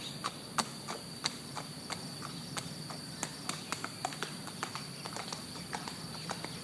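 A string of sharp, irregular taps or clicks, about three a second and loudest near the start, over a steady high-pitched whine.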